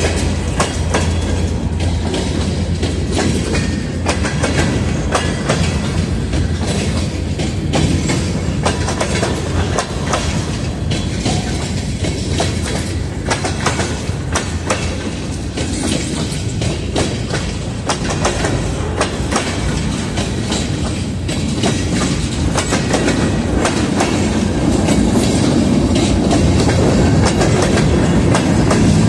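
Freight train rolling by, its wheels clacking over rail joints in a steady stream of clicks over a constant rumble. A low steady hum fades out about ten seconds in, and the rumble grows louder near the end.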